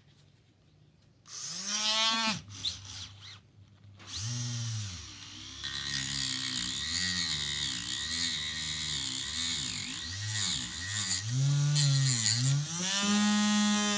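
Handheld rotary motor tool with a cut-off disc cutting through the thick sprue gate of a clear plastic canopy part. It spins up briefly about a second in, then from about four seconds in runs steadily, its whine dipping and wavering as the disc bears on the plastic, with a hiss of cutting. Near the end the whine rises and holds steady as it runs free.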